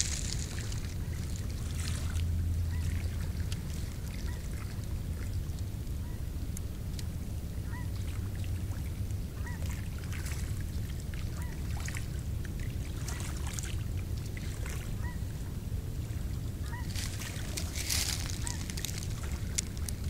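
Distant waterfowl calling in short, repeated notes every second or two, over a steady low rumble. A brief rustle comes near the end.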